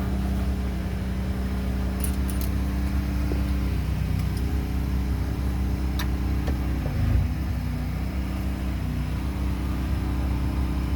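Freightliner Cascadia's heavy diesel engine idling steadily, with a few light clicks over it.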